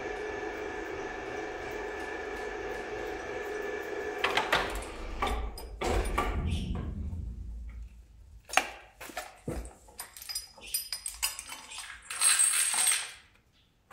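An electric chain hoist's motor whines steadily, then stops about four seconds in. Heavy clunks follow as the hoisted engine and its wooden pallet are moved, then the hoist chain clinks and rattles repeatedly as it is handled.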